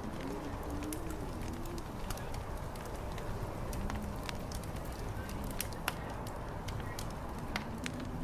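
Fire crackling with frequent small sharp pops over a steady low rumble of wind. A low, indistinct wavering murmur comes and goes, heard in the first couple of seconds, briefly about four seconds in, and again near the end.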